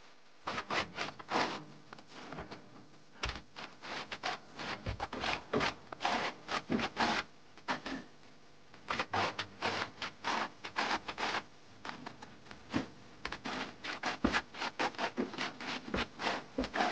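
A hand tool scraping and rubbing over a cement-coated wall in quick, uneven strokes, a few a second, with a short pause about halfway through.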